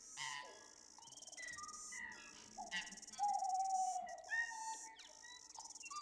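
Nature ambience of insects chirring steadily with birds calling over them: short whistles, glides and clicks, the loudest a long whistled note about three seconds in.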